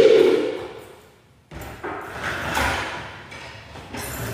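Knocks and scrapes from a wheeled swivel office chair being moved and sat on over a tiled floor: a loud sound at the start that fades, then a sudden onset about a second and a half in and several separate knocks after it.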